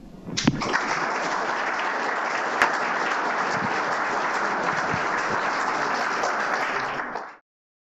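Audience applauding steadily. It starts about half a second in and is cut off abruptly near the end.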